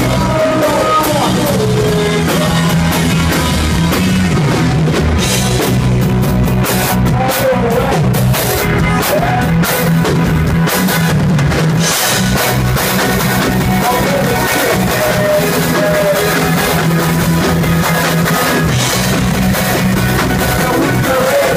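Rock band playing live and loud: distorted electric guitars over a driving drum kit.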